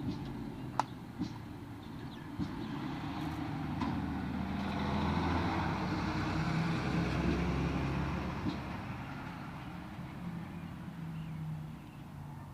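A road vehicle driving past, its engine and tyre noise growing louder toward the middle and then fading away.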